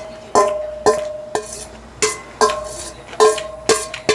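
A metal spoon striking a large stainless steel bowl over and over while mixing bibimbap, about two clinks a second. The bowl rings after each strike.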